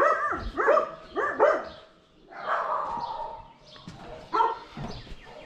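Dog barking: a quick run of four or five barks in the first second and a half, a longer call around the middle, and another bark near the end.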